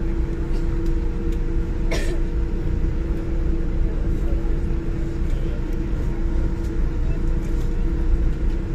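Steady cabin noise inside a Boeing 787-9 airliner on the ground after landing: an even low rumble with a constant hum. A single sharp click sounds about two seconds in.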